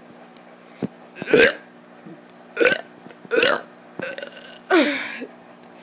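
A child burping: a string of short, loud burps in quick succession, then a longer one near the end with a falling pitch.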